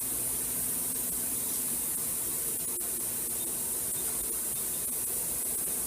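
Okuma Cadet Mate vertical machining center running with a steady low hum under an even, constant hiss.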